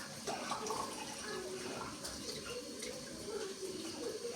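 Running water, a steady rush.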